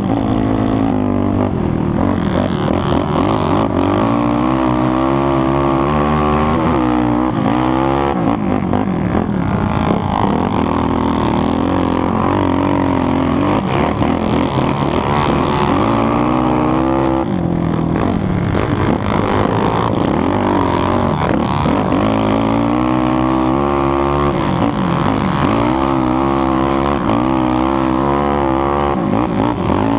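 Yamaha YFZ450R quad's single-cylinder four-stroke engine, bored out to 478 cc with a DASA aftermarket exhaust, revving hard under load. Its pitch climbs and drops over and over as the rider works the throttle and gears.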